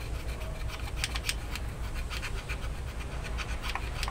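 Screwdriver scraping and clicking against a small metal part of a MAN truck's clutch booster while a repair-kit O-ring is fitted. The ticks are short and irregular, several a second, over a steady low hum.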